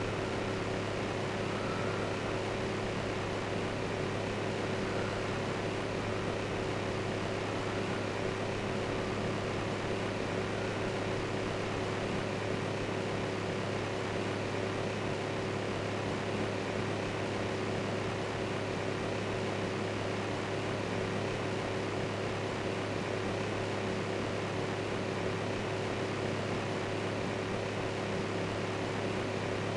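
Electric fan running steadily: an even whir with a low hum underneath.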